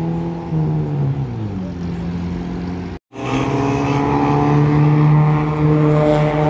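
Vehicle engine held at high revs on a road. The pitch steps down and sags about a second and a half in, then it cuts out abruptly for a moment. After that a steady engine drone at high revs comes back, louder.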